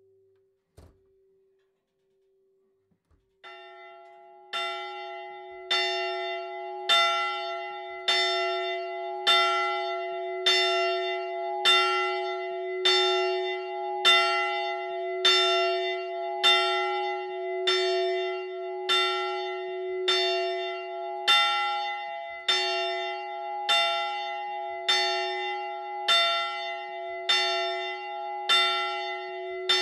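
A swinging church bell tolling, its clapper striking about once every second and a bit, each stroke ringing on into the next. It starts softly about three seconds in and soon rings at full strength, after a near-silent start with only a faint fading hum.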